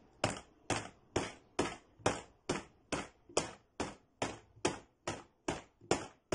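Small boxes tapped as a homemade percussion instrument, keeping a steady beat of short knocks, about two a second, counting out beats in 3/4 and 4/4 time.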